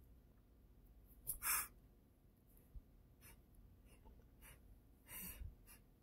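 A man sniffing and breathing through his nose in a few short sniffs. The loudest comes about a second and a half in, with smaller ones later and another near the end.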